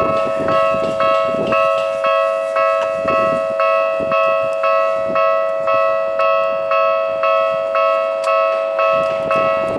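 Japanese level-crossing warning bell ringing at a steady rate of about two strokes a second, over a constant two-note tone. It warns that a train is approaching.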